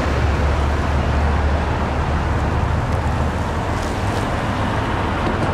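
Road traffic, cars and pickup trucks, driving over the railroad crossing: a steady rumble of engines and tyres.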